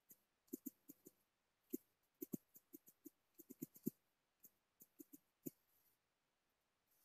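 Faint, irregular clicks of typing on a smartphone's touchscreen keyboard, about twenty taps in quick runs, stopping about five and a half seconds in.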